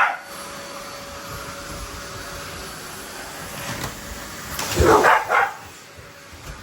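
A dog barking excitedly at a vacuum cleaner: one sharp bark at the start, then two barks in quick succession about five seconds in, over the steady hiss of the vacuum running.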